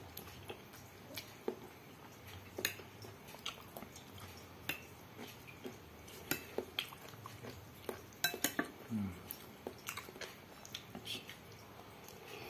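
Metal spoon and fork clinking and scraping against a glass bowl of noodle soup in scattered sharp clicks, several close together about eight seconds in, with quiet chewing between.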